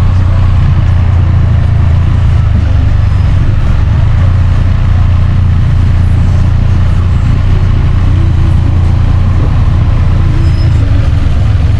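Motorcycle engine running steadily, a loud, even low rumble that does not rise or fall.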